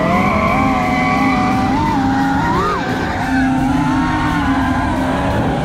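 Two drift cars, a Mustang GT and a Nissan Silvia S14 with its SR20DET turbo four, held at high revs through a tandem drift over tyre noise. The engine note stays high and wavers, rising and dropping briefly about two and a half seconds in.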